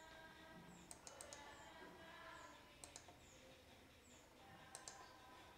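Near silence, broken by a few faint clicks in small clusters of two or three.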